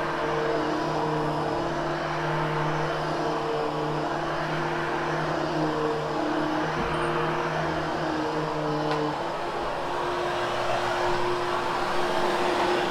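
Vacuum cleaner running steadily over carpet: a constant motor whir with a hum whose pitch shifts slightly about nine seconds in.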